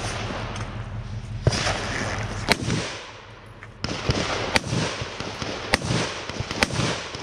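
Gunshots fired one at a time, about five sharp reports roughly a second apart.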